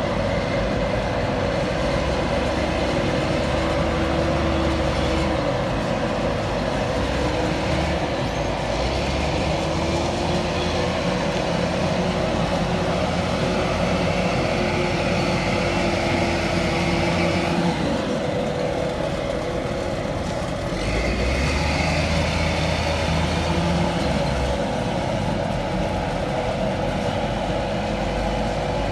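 Wheel loader's diesel engine running as the machine drives and manoeuvres, its pitch and level rising and falling several times, over a steady machinery hum.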